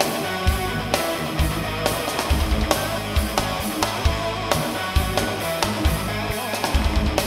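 Progressive metal music: a full-band recording with guitars over a steady drum beat, about two hits a second.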